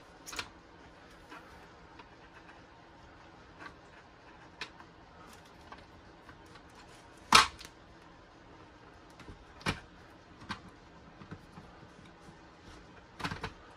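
Small clicks and knocks of plastic parts being fitted together by hand as an RC car's front gearbox and drive shafts are put back in place. The loudest is a single sharp knock about seven seconds in, with another near ten seconds and a few quicker clicks near the end.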